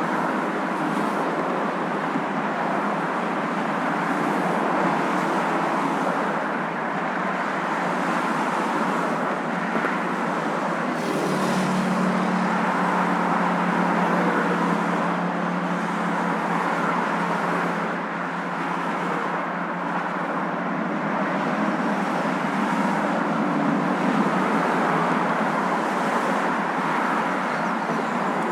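Moving car's steady road and engine noise, an even rushing hum with no breaks. A low steady hum grows stronger about eleven seconds in.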